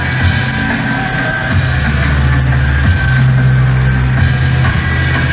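A rock band playing loud, fast music with drums, bass guitar and electric guitar; the bass moves between held notes every second or so.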